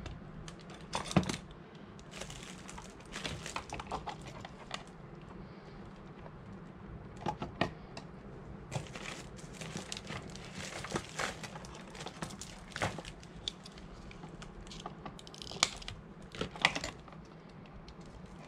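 Irregular clicks, taps and rustling from hands working pliers, wires and plastic tubing in a plastic enclosure box, with sharper knocks about a second in and twice near the end.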